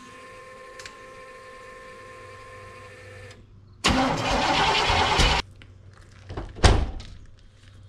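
A steady electrical tone, then the starter cranking a Chevrolet squarebody's 454 big-block V8 for about a second and a half without it firing; the owner believes the engine is flooded. A heavy thump follows about a second later as the truck door slams shut.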